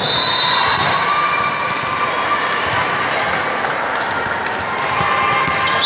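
A referee's whistle blast of about a second and a half at the start, over the steady din of a busy gym hall: voices and balls thudding on the hardwood floor.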